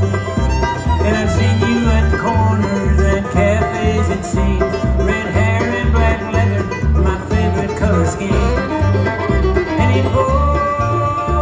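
Live bluegrass band playing an instrumental passage: picked banjo and guitar over a steady bass beat, with a bowed fiddle line.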